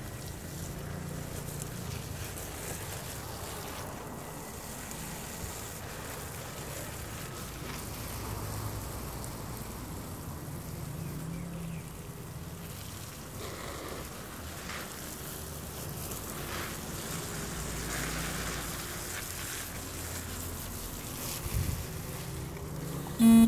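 Garden hose spraying a stream of water onto leafy plants and soil, a steady hiss. A short, loud tone cuts in at the very end.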